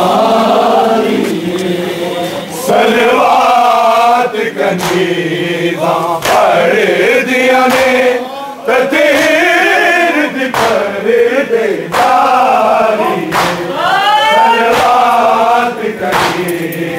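Group of men chanting a noha, a Shia mourning lament, in unison. A few sharp knocks cut through the chanting.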